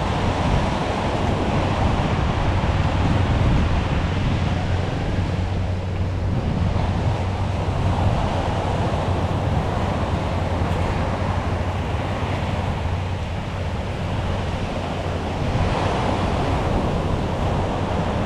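Sea waves washing onto the beach, swelling and easing every few seconds, with wind rumbling on the microphone.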